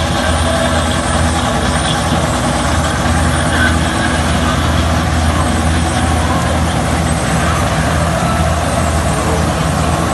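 Combine harvester's diesel engine and machinery running steadily with a loud, constant hum.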